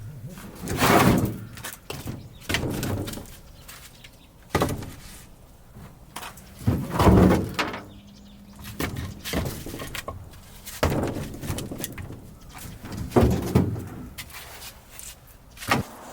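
Split logs of green, unseasoned firewood knocking and clunking against one another as they are handled and stacked, about eight irregular knocks, one every second or two.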